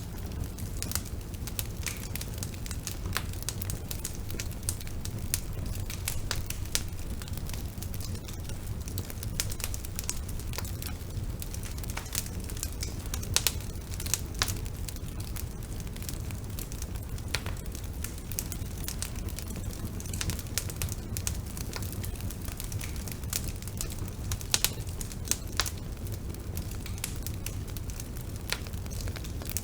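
Bonfire burning: a steady low rumble of flames with irregular sharp crackles and pops of burning wood, a few of them louder than the rest.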